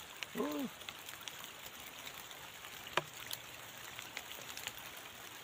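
Light drizzle falling on water and grass: a steady soft hiss with many small scattered drop ticks. A brief human voice sound comes about half a second in, and a single sharp click about three seconds in.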